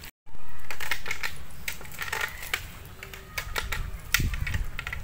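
Weighted nylon cast nets being handled by hand: a run of light clicks and rustles as the mesh is gathered and shaken out, over a steady hiss. The sound drops out for a moment at the very start.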